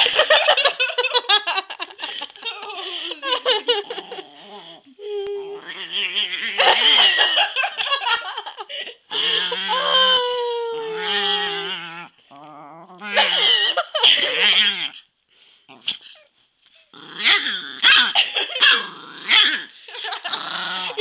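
Chihuahua growling and snarling at a hand teasing it, mixed with people laughing.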